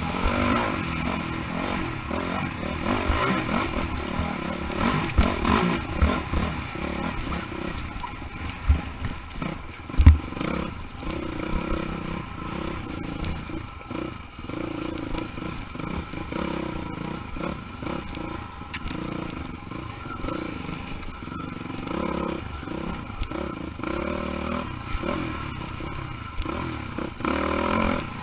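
Off-road dirt bike engine running hard on a rough trail, its pitch rising and falling with the throttle, while the bike clatters and thumps over bumps, with one hard knock about ten seconds in.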